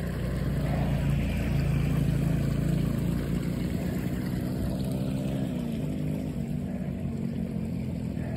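A motor vehicle's engine runs steadily in the background, and its pitch drops slightly about five seconds in.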